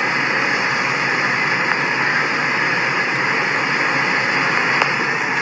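Steady rushing noise inside a car's cabin with the vehicle running, even in level with no distinct events.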